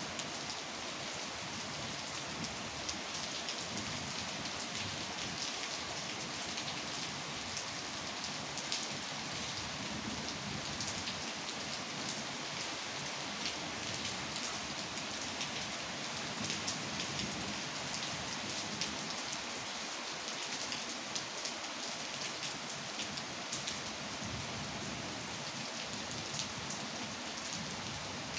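Steady heavy rain falling, with many small ticks of drops striking hard surfaces close by.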